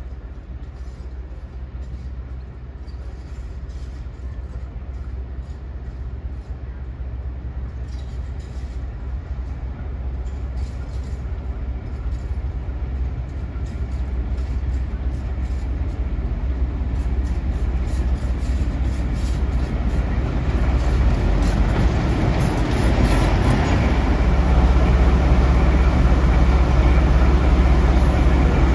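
Diesel locomotive engine running with a steady low drone, growing steadily louder as the train draws near.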